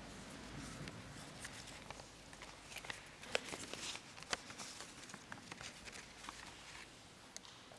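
Sheets of paper being handled and shuffled at a lectern, with faint rustling and a string of small clicks and knocks, busiest in the middle.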